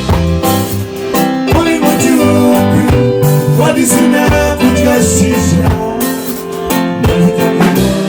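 Band music led by plucked guitar lines over a steady beat.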